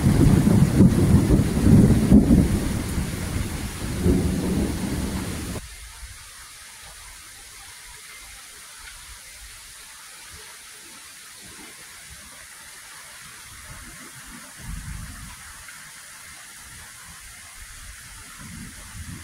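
Thunderstorm: loud, uneven low rumbling of thunder mixed with wind buffeting the microphone for about the first five and a half seconds, which cuts off abruptly. Then a steady, quieter hiss of rain, with a brief low rumble about two thirds of the way through.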